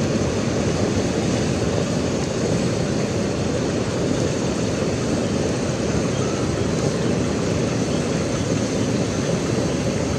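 Pot of fish and bok choy soup at a rolling boil, with a steady, low bubbling rumble.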